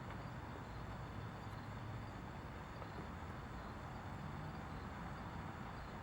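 Faint, steady background rumble and hiss with no distinct sounds standing out.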